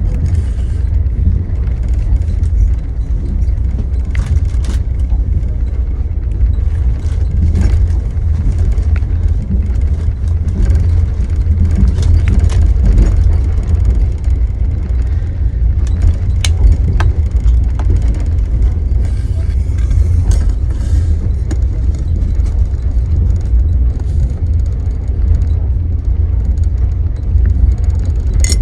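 Steady low rumble of a long-distance sleeper train running, heard from inside a passenger compartment, with occasional faint clicks over it.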